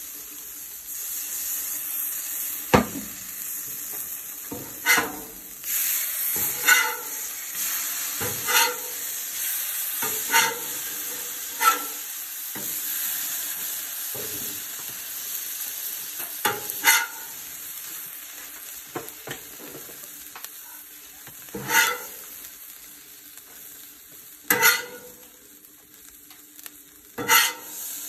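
Birria tacos sizzling in oil on a Blackstone flat-top griddle, a steady hiss. About ten sharp clacks and scrapes from a metal spatula on the steel griddle top break in every few seconds as the tacos are flipped and lifted off.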